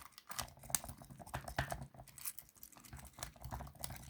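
Jiggler key being worked in a wafer lock: a quick, irregular run of small metallic clicks and rattles as the key rakes the wafers.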